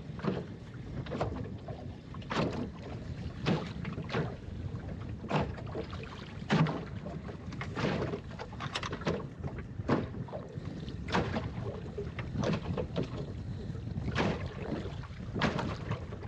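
Small choppy waves slapping against the plywood hull of a small open sailing skiff, a sharp splash about every second at irregular intervals, over a steady low rush of wind and water.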